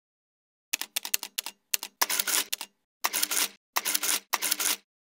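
Camera shutter sound effect: a quick run of sharp clicks, then four longer shutter bursts about half a second each.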